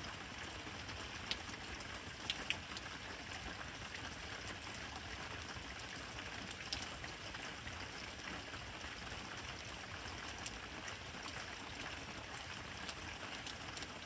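Steady rain hissing, with a few sharp single drops ticking close by, the loudest about two and a half seconds in.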